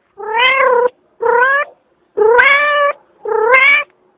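Domestic cat making four drawn-out, meow-like calls, evenly spaced about a second apart, each starting with a slight rise in pitch and then holding steady. The title takes these sounds, made as the cat sleeps, for snoring.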